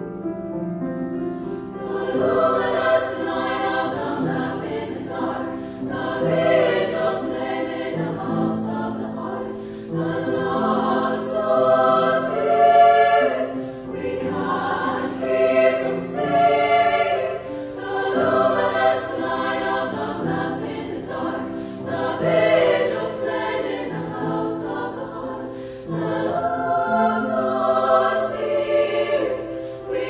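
Women's choir singing in several parts, held notes swelling and easing in phrases, growing fuller about two seconds in.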